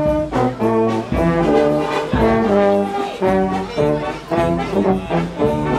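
Brass band (fanfare) playing a tune in parts, trombones and trumpets sounding held notes that change about every half second.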